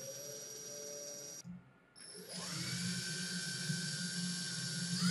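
Cordless drill motor running with a blind rivet held in its chuck: a short steady run that cuts off after about a second and a half, then after a brief pause the drill spins up again with a rising whine and keeps running steadily.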